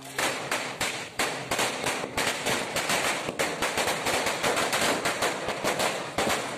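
A string of firecrackers going off on the ground as a continuous rattle of sharp bangs, several a second and irregularly spaced.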